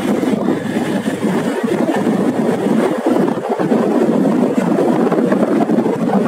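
Bajaj Pulsar 150 motorcycle ridden at steady speed: a steady rush of engine and wind noise picked up by a camera on the rider.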